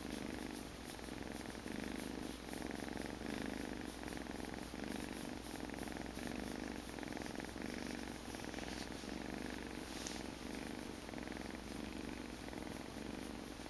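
Small cat purring steadily, the purr swelling and fading in a slow, regular rhythm with its breathing.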